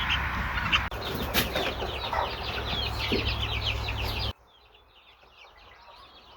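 A group of chicks peeping together: a dense run of short, high, rapidly repeated cheeps. The sound drops off sharply about four seconds in, leaving fainter peeping.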